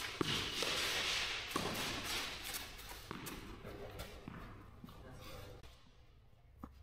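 Tennis rally on an indoor clay court: several sharp racket-on-ball hits spread through the moment, with shoes scuffing and sliding on the clay in between, in a large echoing hall.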